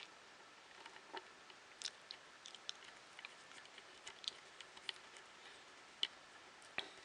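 Faint, irregular small clicks and ticks of plastic and metal kit parts being handled while a small screw is fitted to the 3D printer's Y-axis belt holder.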